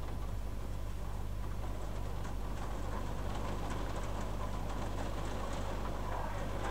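Steady low electrical hum and hiss from a webcam's microphone, with faint scattered ticks; no thunder clap stands out.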